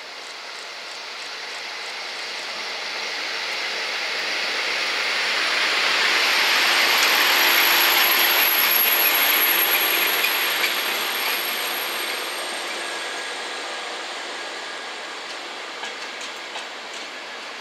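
Diesel-hauled passenger train, an FS D.445 locomotive followed by a long rake of coaches, rolling past on the rails. Its rushing noise swells to a peak about halfway through and then fades, with a thin high whine over the loudest stretch and a few clicks of wheels over rail joints near the end.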